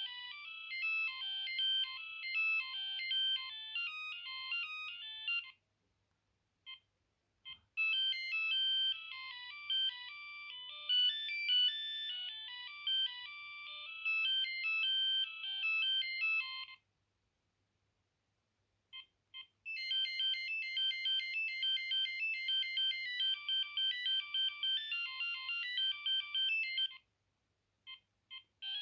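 Built-in ringtones of a Vodafone MX-6869 mobile phone playing through its small speaker: three tinny electronic tunes one after another, each several seconds long. Short gaps with a few brief beeps separate them, as each ringtone is previewed in turn.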